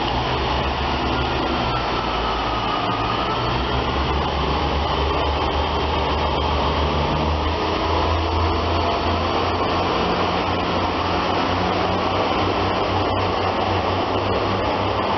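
Class 143 Pacer diesel multiple unit pulling out of the station, its underfloor diesel engines giving a steady loud drone with a low hum that changes note a few times.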